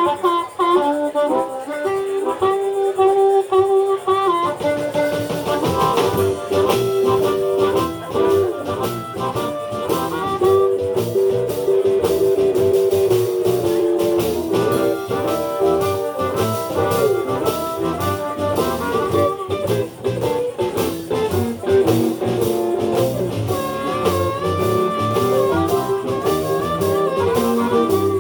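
Live blues band playing an instrumental passage without singing: a sustained lead line over guitar, with the full drum beat coming in about four seconds in.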